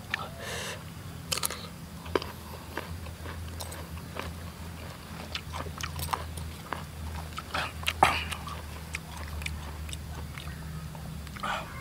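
Close-up chewing and biting of raw young mango, a run of crisp, irregular crunches with one louder crunch about eight seconds in, over a steady low hum.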